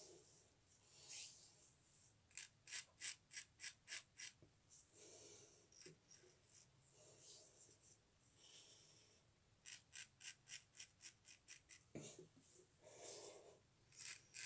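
Ever Ready safety razor scraping across lathered stubble in two runs of short, quick strokes, about four a second, with soft breaths between the runs.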